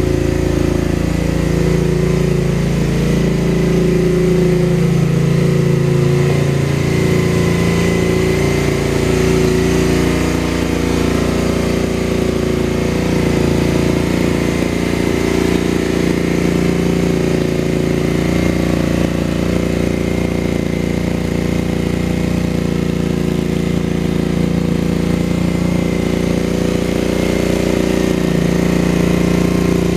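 Engine of a homemade dune buggy, built up to 67 hp, idling steadily. Its pitch wavers a little in the first several seconds.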